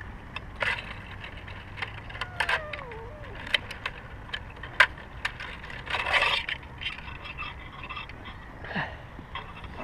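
Rustling of branches and scraping against tree bark as a cat is grabbed by the scruff and handled up in a tree, with scattered sharp clicks and knocks and a longer rustle about six seconds in.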